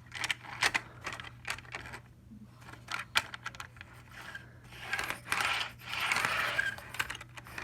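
Rivarossi model passenger coach being handled onto the track: a run of small plastic clicks and taps, then from about five seconds in a squeaky scraping as its wheels roll on the rails. The squeak comes from dry wheel bearings that need oiling.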